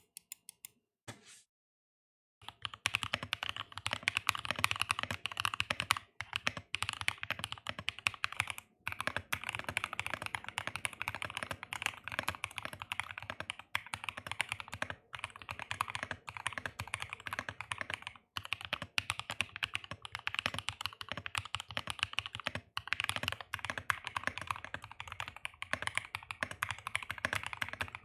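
Typing on an NK65 Aluminum V2 mechanical keyboard with factory-lubed linear switches, an FR4 plate and PBT keycaps: a few clicks, then about two seconds in a fast, continuous stream of key clacks broken by brief pauses.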